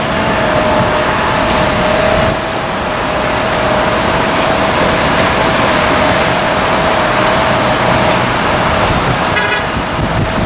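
Alaska Embraer 175 regional jet's two GE CF34 turbofan engines running as it passes: a loud steady rush with a held whine.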